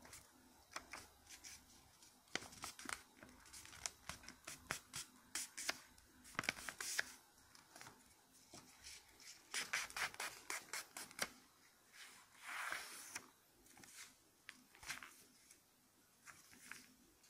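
Sheet of origami paper being handled and folded close to the microphone: clusters of crisp crackles and taps as it is bent and creased, with one longer rustling stroke about two-thirds of the way through.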